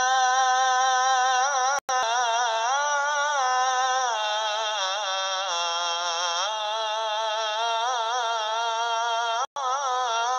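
Azan, the Islamic call to prayer, chanted by a single voice: the phrase "Hayya 'ala l-falah" drawn out in one long ornamented melodic line. The sound cuts out very briefly twice, about two seconds in and near the end.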